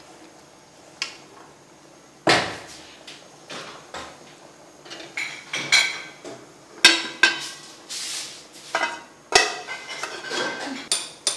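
A spoon knocking and scraping against an aluminium soup pot: a run of sharp clanks, some with a brief metallic ring, coming singly and in quick clusters after a quiet start. Near the end the pot's aluminium lid is handled and set on.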